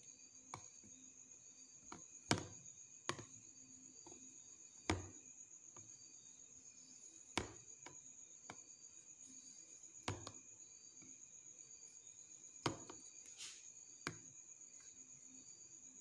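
Knife cutting set gelatin jelly in a plastic tub, the blade knocking against the tub's bottom in about nine sharp, irregular clicks. A steady high cricket trill runs underneath.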